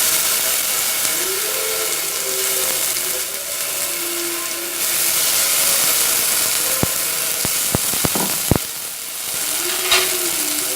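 Spice paste of ground pepper, cumin, garlic and tomato sizzling in hot oil in a pan as it is stirred, with a steady hiss. A few sharp clicks come about seven to eight and a half seconds in.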